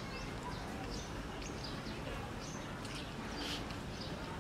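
Birds chirping, many short high calls scattered throughout, over a steady low outdoor background noise.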